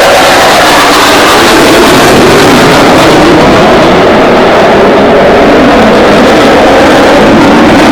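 A formation of Hawk jet trainers flying low overhead: loud, steady jet noise with no break. The high hiss thins slightly near the end as they pass.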